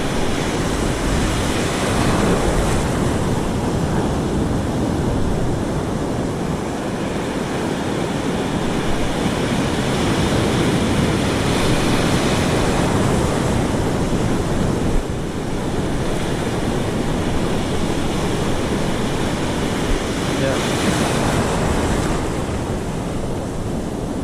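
Ocean surf breaking and washing up the beach, a steady rush that swells with each wave about every nine or ten seconds, with wind buffeting the microphone.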